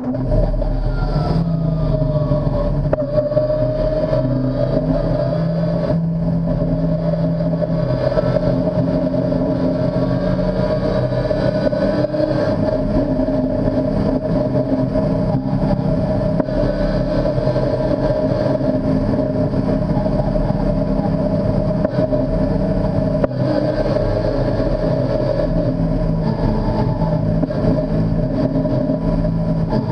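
Modified BMW S54 straight-six in an ex-Super Touring BMW race car, heard from the cockpit, running at low, steady revs while the car crawls along slowly. The car has lost all its gears through a bad electrical connection to the steering-wheel paddle shifters of its sequential gearbox.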